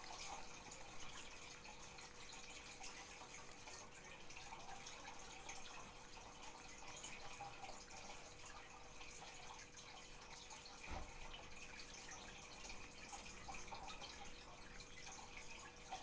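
Quiet room tone with a faint steady hum and small scattered ticks, and one soft thump about eleven seconds in.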